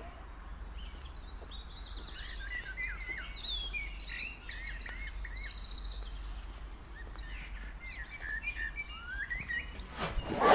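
Small songbirds singing: a run of quick chirps and fast trills of rapidly repeated notes, thinning out toward the end.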